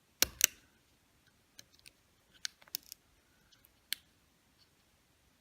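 Small sharp clicks of a plastic pry tool working a ribbon-cable connector loose inside an iPhone: two louder clicks right at the start, then a few fainter, scattered ones.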